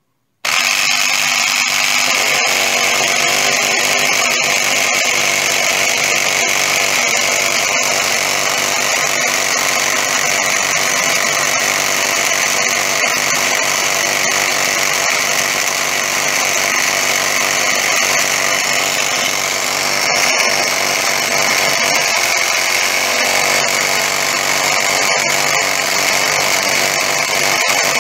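Small electric piston air compressor starting abruptly about half a second in and running steadily, pumping against a blocked outlet. It is building pressure again after being reassembled.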